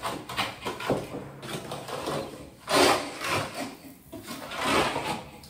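A trowel scraping and spreading thin-set mortar in a series of rasping strokes, the loudest about three seconds in and again near five seconds.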